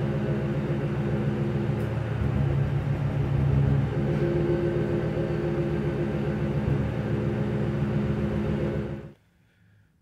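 Exhaust note of a Mercury Grand Marquis's 4.6 V8 idling at the tailpipe, steady, with a brief tone change partway through as a coil is unplugged: the change shows that cylinder is firing. The sound cuts off abruptly about nine seconds in.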